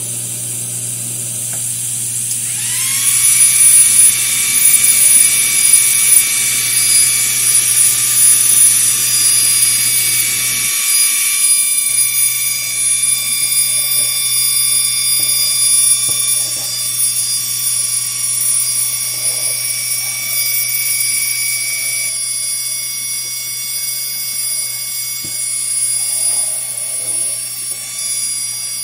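Air assist and exhaust fan running loud: a steady low hum, joined about two and a half seconds in by a high whine that rises as it spins up and then holds. Later the xTool D1 Pro diode laser's head moves over the wood while engraving, adding faint short whirs.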